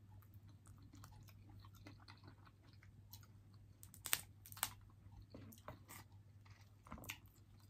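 Quiet chewing of boiled snow crab meat, with a few sharp cracks as the crab leg shells are snapped open, the loudest about four seconds in and again half a second later. A steady low hum runs underneath.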